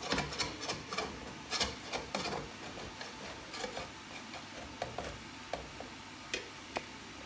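A metal spoon scraping and knocking against the inside of a copper pot as cooked tahchin rice and chicken are scooped out. There is a quick run of scrapes and clicks at first, thinning to occasional single clicks after about two and a half seconds.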